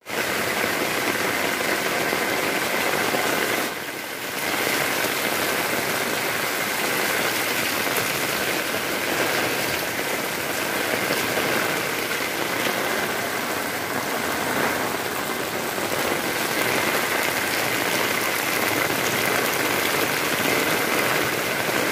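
Heavy rain falling steadily, with water pouring off roof edges and running over the ground. The sound drops briefly about four seconds in.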